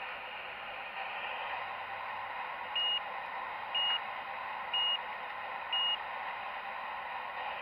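Four short electronic beeps about a second apart, like a reversing warning alarm, over a steady hiss.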